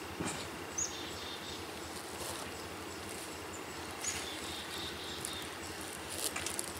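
Quiet woodland ambience with two brief high chirps, one about a second in and one about four seconds in, and a faint on-and-off high trill. Near the end comes a short crackle of a plastic bag of peanuts being handled.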